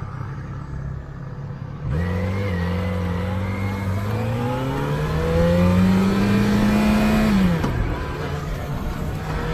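Motorcycle engine idling, then pulling away hard about two seconds in. Its note rises steadily for about five seconds, then drops off as the throttle closes. Wind noise on the microphone builds as the bike gathers speed.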